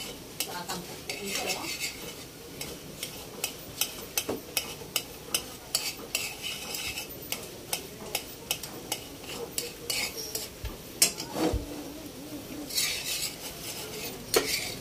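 Metal spoon stirring thickening gravy in a pan, clinking and scraping against the pan about twice a second, with the gravy bubbling at a simmer. It is stirred without stopping so it does not stick and scorch on the bottom.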